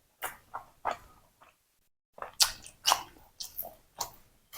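Close-up chewing of fried tofu with sambal: short, irregular mouth clicks and smacks, with a brief pause about two seconds in.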